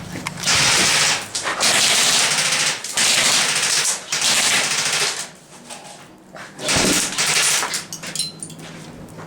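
Airsoft gun firing full-auto bursts: four bursts of about a second each in quick succession, then a pause and one more burst about seven seconds in.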